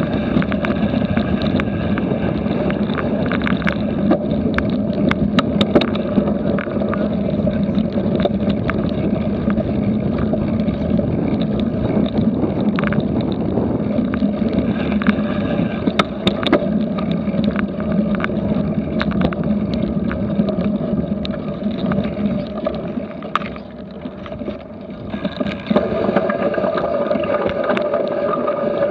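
Ride noise of a cyclocross bike racing over grass and dirt: steady wind rush and tyre rumble, with frequent sharp rattles and knocks from the bike over bumps. It eases off briefly about 23 seconds in.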